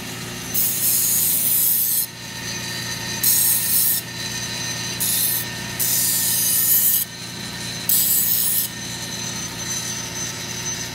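Belt grinder running with a steady hum. A sheet-metal edge is pressed to the moving belt about five times, each pass a loud, hissing grind lasting a second or so, as the burr is taken off the cut edge.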